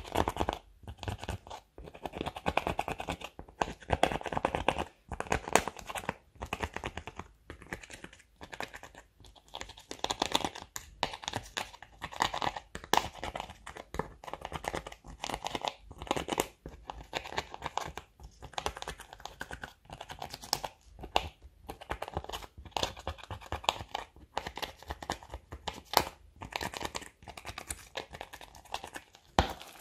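A small spatula scraping and crumbling pressed eyeshadow out of the pans of a makeup palette: rapid, irregular scratchy crunching strokes.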